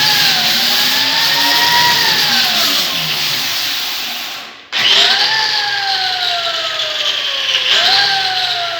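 Glass door squealing on its pivot as it is swung, a high squeal sliding slowly in pitch. It stops for a moment about four and a half seconds in, then starts again with the next swing. This is the noise fault that needs repair.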